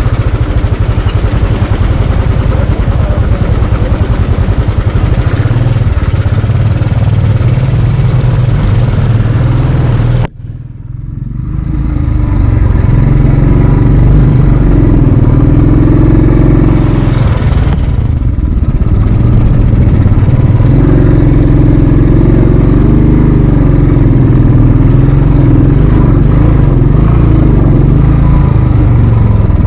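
Motorcycle engine running steadily while riding, loud and low-pitched. The sound drops out briefly about ten seconds in, then returns.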